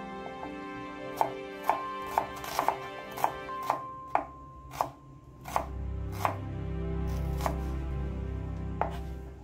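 Santoku knife slicing a small red onion on a plastic cutting board: about a dozen sharp knocks of the blade meeting the board, roughly two a second with uneven spacing, starting about a second in.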